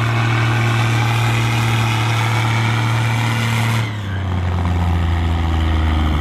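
Case IH 1455XL tractor's diesel engine running hard under heavy load, pulling the sled with its front wheels lifted. About four seconds in, the sound drops suddenly to a lower engine note that then slowly climbs.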